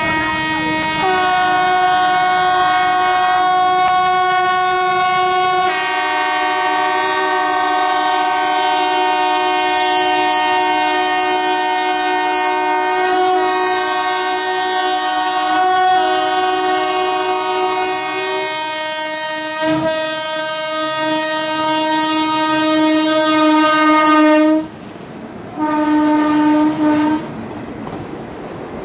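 Indian Railways locomotive horns sounding a long continuous warning of about 25 seconds as the train approaches, warning people to clear the tracks at the crossing; the chord of tones shifts several times. After a brief break there is one shorter blast near the end.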